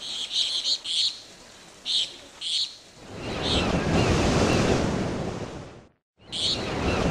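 Short high chirps of birds repeating, then a wave washing in as a rushing swell that rises and fades. The sound cuts off abruptly about six seconds in and comes back with the chirps.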